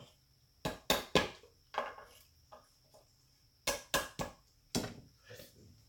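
Sharp knocks on wooden window trim, knocking out old staples: about ten strikes, mostly in quick groups of two or three.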